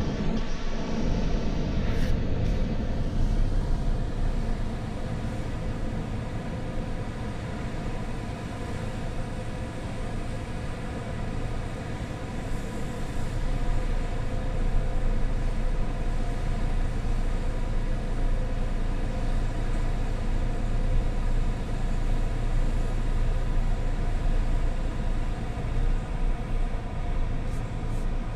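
A car heard from inside its cabin as it creeps slowly forward: a steady low rumble with a constant droning hum.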